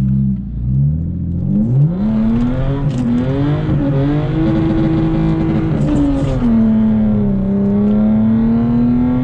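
Lexus IS300's 3.0-litre inline-six revving hard under acceleration: engine speed climbs steeply over the first couple of seconds and keeps rising, then drops about six and a half seconds in and holds steady.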